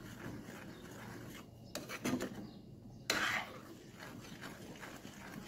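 A spoon stirring and scraping through thick, reduced, sweetened milk in a steel pan. A few louder scrapes come about two seconds in, and the loudest just after three seconds.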